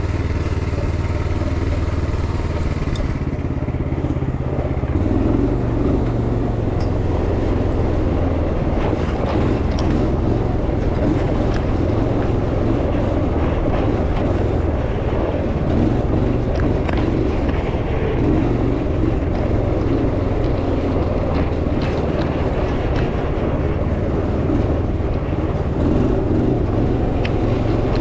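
Off-road buggy engine running as the buggy drives a dirt track: a steady note for the first few seconds, then a rougher, changing note from about five seconds in.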